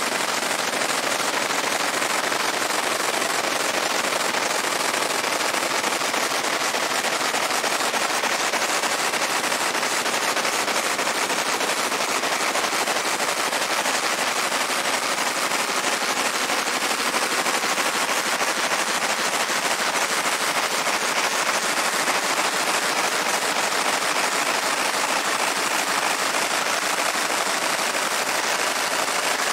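Fiber laser engraving a Glock 19 pistol slide: a steady, dense, rapid crackle as the beam marks the metal.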